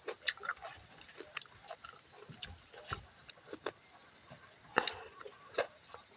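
A person eating close to the microphone: soft, irregular chewing, lip smacks and mouth clicks, with a couple of louder smacks about five seconds in.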